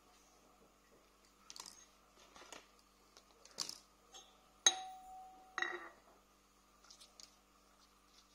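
Metal hand tools (scissors, a knife and a small garden tool) being handled and set down on a tiled floor: scattered light knocks and clicks, then a sharp metallic clink a little past halfway that rings briefly, and another knock about a second later.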